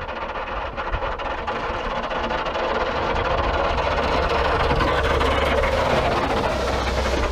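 Snowplow truck coming down the highway, its engine running and its plow blade scraping bare pavement, making a lot of noise. It grows louder as it approaches, loudest in the second half.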